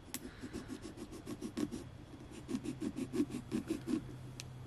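Small serrated carving knife sawing through pumpkin rind and flesh with quick back-and-forth strokes, about five a second.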